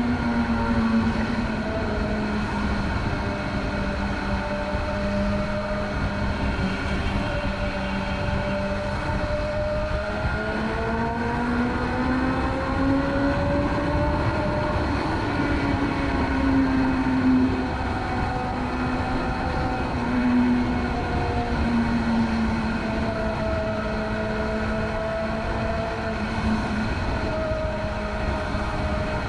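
BMW S1000RR's inline-four engine running under way at a steady cruise, its pitch rising and falling gently with small throttle changes and climbing a little near the middle.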